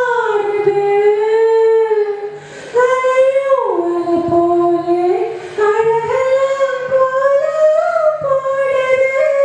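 A singer's voice through a stage microphone, holding long high notes of a Tamil film-song melody and stepping down and back up between them, with a short pause for breath about two and a half seconds in.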